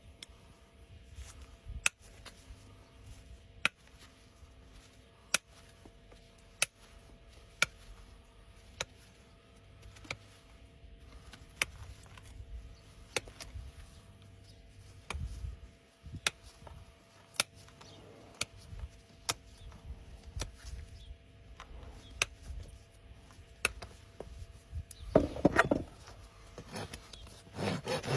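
Hoof trimming on a horse's hoof: sharp clicks every second or two, then rough rasp strokes across the hoof starting near the end.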